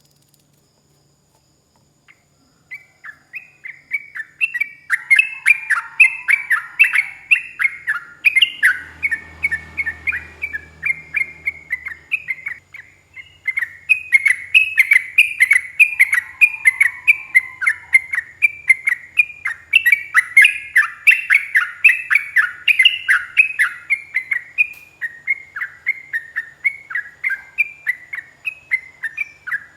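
Sooty-headed bulbul (trucuk) singing a long, fast run of chirped notes. It starts about two seconds in, eases briefly near the middle, then carries on.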